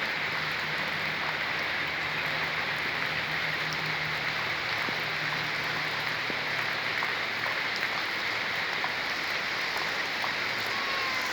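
Steady rain falling: a dense, even hiss with scattered drop ticks.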